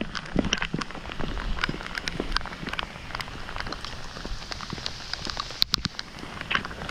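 Steady rain falling, with many irregular sharp ticks of drops striking close by, and two sharper clicks a little past halfway.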